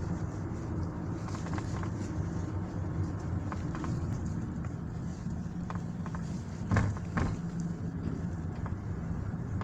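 Knocking and rattling from the dashboard panel of a Hyundai i40, heard from inside the cabin over steady road and engine noise while driving. Short knocks come irregularly, with two louder ones a little past the middle.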